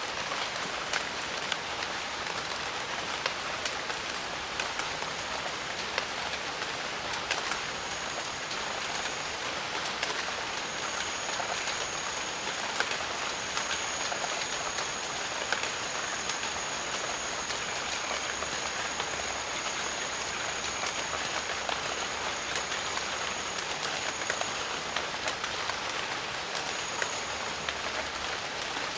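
Steady rain in a jungle, a constant hiss with many individual drops ticking close by. A thin, steady high tone comes in about eight seconds in, holds for most of the rest and returns briefly near the end.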